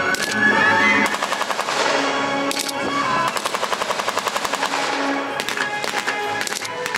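Automatic gunfire in rapid bursts: one burst about a second in, a longer one around the middle, and scattered single shots between and after, with background music underneath.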